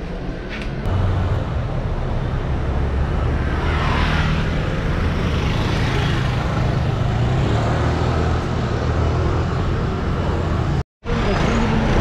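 City street traffic: motor scooters and small cars running and passing on a cobbled street, a steady low rumble of engines and tyres. The sound drops out for a moment near the end.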